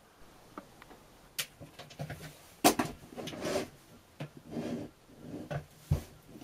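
Handling noise on a metal telescope focuser: a few sharp clicks and knocks, the loudest about two and a half seconds in, with short rubbing and scraping sounds between them.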